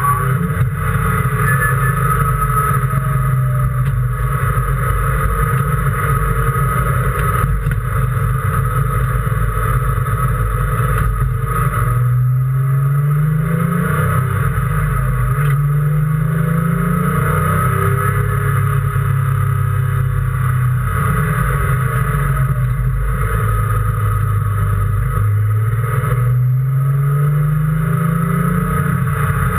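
Race car engine heard from inside the car at speed, pulling hard with its pitch climbing and dropping back several times as it shifts through the gears, most clearly in the middle and near the end.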